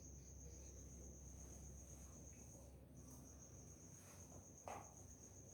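Near silence: room tone with a faint, steady high-pitched trill that breaks off briefly about three seconds in, over a low hum.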